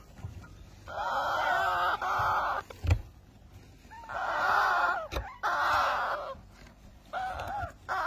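Yellow ringneck parakeet chicks calling harshly in four or five raspy bursts of about a second each. A couple of short knocks are heard between the calls.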